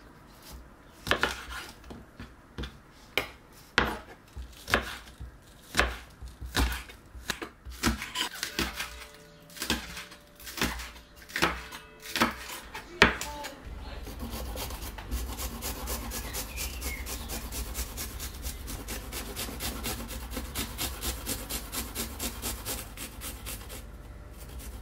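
Kitchen knife chopping spring onions on a wooden cutting board, sharp knocks at an uneven pace. About halfway through this gives way to garlic being grated on a stainless-steel rasp grater, a steady run of quick scraping strokes.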